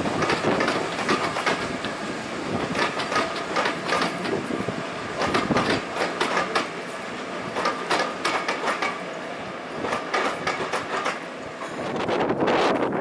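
Passenger coaches rolling past, their wheels clacking over rail joints in quick irregular clicks over a steady rumble. Near the end a louder swell of noise takes over.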